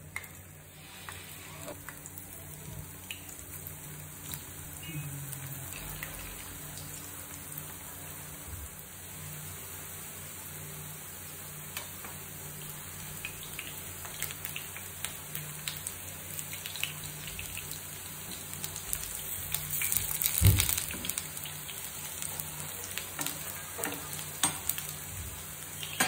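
Puffed rice patties sizzling as they shallow-fry in oil in a nonstick pan, with scattered crackles; the sizzle grows a little louder as more patties go in. A loud knock about two-thirds of the way through.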